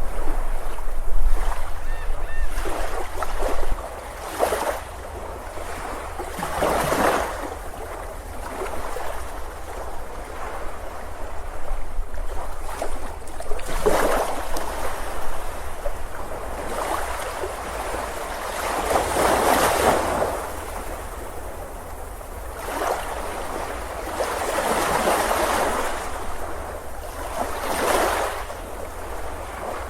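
Ocean surf on a beach: waves breaking and washing in, swelling and falling away every few seconds, with a low wind rumble on the microphone underneath.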